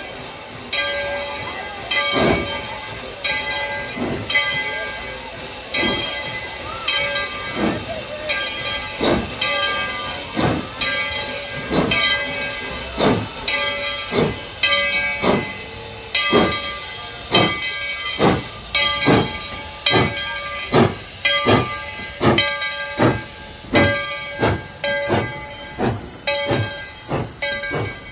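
Steam locomotive pulling out, its exhaust chuffs coming about every two seconds at first and quickening steadily as it gathers speed, over a hiss of escaping steam.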